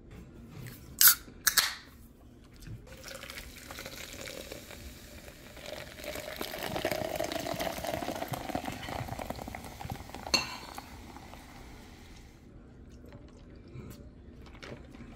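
Table noises: two sharp clicks about a second in, then several seconds of a liquid rushing, pouring sound midway, and one sharp knock later.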